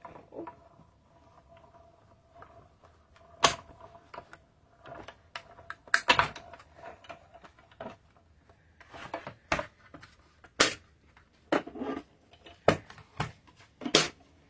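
Clear plastic cutting plates knocking and clacking on a manual Stampin' Cut & Emboss die-cutting machine as the plate sandwich is run through and taken out: about a dozen sharp, irregular knocks, the loudest about three and a half seconds in and at about six seconds.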